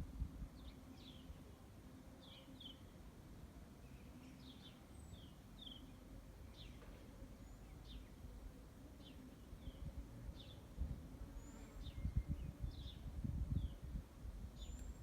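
Small birds chirping repeatedly, in short falling notes, over a low irregular rumble that turns gustier after about ten seconds, with a faint steady hum underneath.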